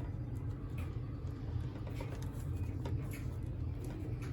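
Faint handling noises of a plastic toy parrot's shell and fur being worked apart by hand: a few soft rustles and small plastic clicks, over a steady low hum.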